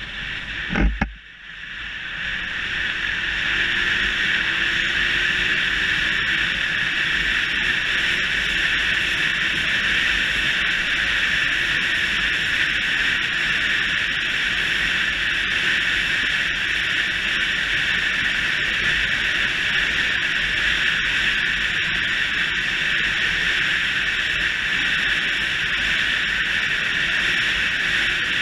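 Steady wind rush on the microphone of a Yamaha YBR125 motorcycle riding at speed, with the bike's single-cylinder engine faint underneath. A brief low thump comes about a second in; the rush then builds over the next couple of seconds as the bike gathers speed, and holds steady.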